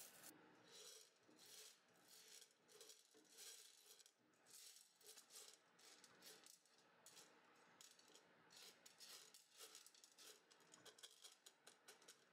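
Quiet, irregular rattling and scraping of dry popcorn kernels being pushed around a nonstick frying pan with a silicone spatula.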